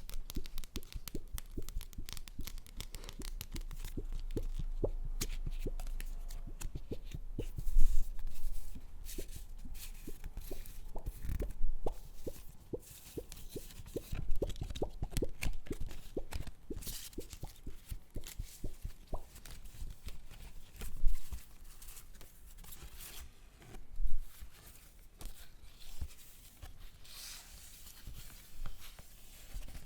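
Paper handled close to the microphone: irregular crinkling and crackling, with some tearing and a few louder crackles standing out.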